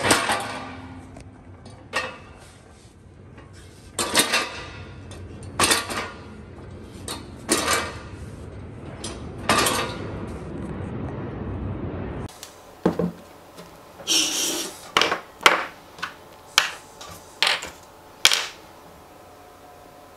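Metal hand truck knocking and clanking on a hard floor as it is tipped and set down on its pneumatic tyres, one loud knock about every two seconds over a low hum. About twelve seconds in the sound cuts to a quicker run of lighter clicks and knocks.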